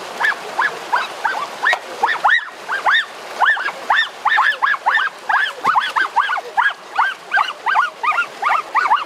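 An animal giving a rapid run of short, high calls, each rising and falling in pitch, several a second, over the steady rush of a shallow stream.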